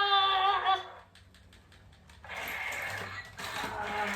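A child's sung note trails off, then small plastic toys clatter and click as they are handled.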